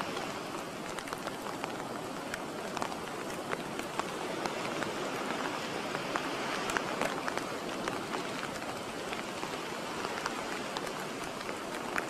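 Steady rushing outdoor noise sprinkled with many small crackles and ticks.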